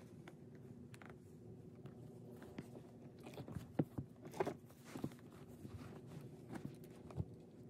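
Toys being handled and set in place: scattered light clicks, taps and rustles, with a few louder knocks in the middle and one near the end, over a faint steady hum.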